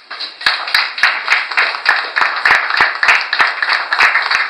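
A small group of people clapping, the applause picking up within the first half-second. A few sharp claps close by stand out from the rest.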